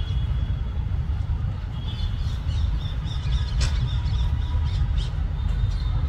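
Alexandrine parakeets giving short squawking calls, most of them from about two seconds in, with a sharp click near the middle, over a steady low rumble.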